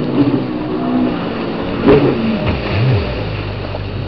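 Jet ski engine running and revving as the craft carves past, its pitch dipping and rising over the rush of noise. A sharp knock about two seconds in is the loudest moment.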